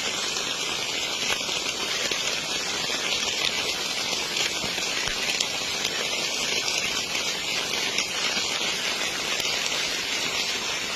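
River water rushing steadily, an even hiss without a break.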